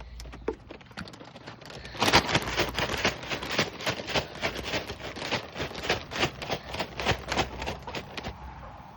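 Chickens pecking at seed: a dense run of quick sharp taps and clicks, picking up about two seconds in and thinning out near the end.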